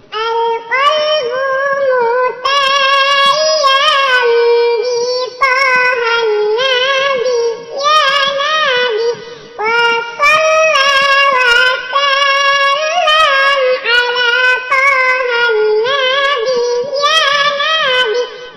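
High-pitched voice singing a sholawat, an Islamic devotional song in praise of the Prophet, in winding, ornamented melodic phrases of a few seconds each with short breaks between them.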